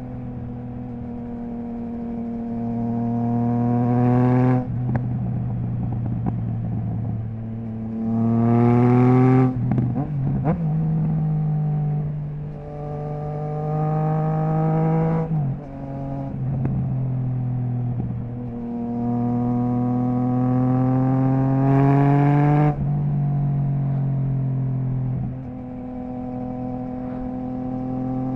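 Triumph Trident 660's three-cylinder engine through a baffle-less Zard stainless full exhaust, accelerating hard several times with the pitch climbing and then cutting off sharply as the throttle closes. A burst of crackles follows the second pull, about ten seconds in, before it pulls again and settles to steady running near the end.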